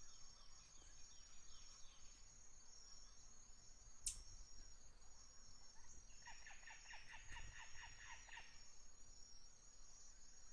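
Faint outdoor nature ambience: a steady, high pulsing insect chirring, with a bird calling a rapid run of about a dozen repeated notes from about six seconds in. A single sharp click comes about four seconds in.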